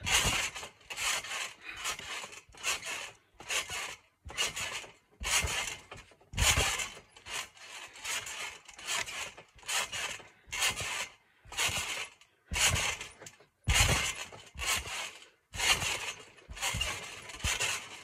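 Rhythmic rasping scrapes close to the microphone, each a fraction of a second long, coming about one or two a second with short gaps.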